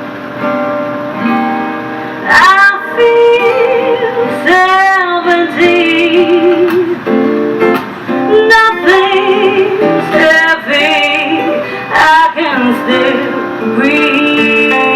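Live pop song in an instrumental stretch: strummed guitar and band accompaniment, with a woman's voice singing wordless runs that bend and waver in pitch several times.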